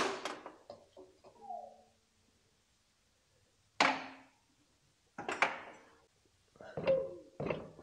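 Hammer strikes, each sharp with a short ring: a loud blow at the start, then a gap of about two seconds, then four more blows spaced a second or more apart.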